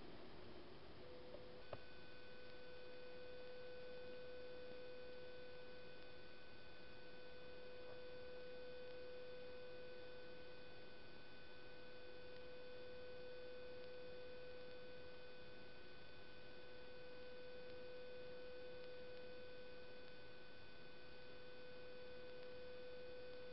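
A steady, unchanging electronic hum at one mid pitch with fainter higher overtones, over low background hiss. It starts about a second in, and the higher tones join just after, with a single faint click.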